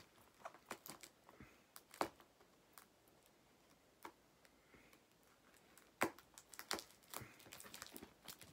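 Faint, scattered clicks and light taps of hands handling a plastic model airliner and its packaging, with sharper clicks about two seconds in and about six seconds in.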